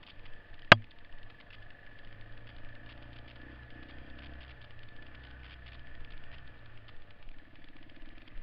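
Honda XL four-stroke single-cylinder trail bike running along a bumpy dirt trail, with many small rattles and clicks from the ride. One sharp, loud knock about a second in.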